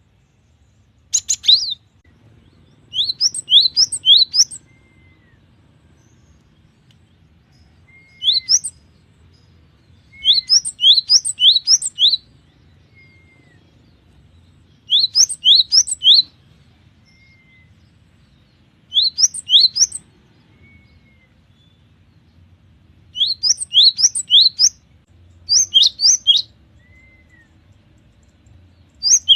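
Cinereous tit (gelatik batu) singing: bursts of quick, high rising notes about a second long, repeated every few seconds, with soft single call notes in between.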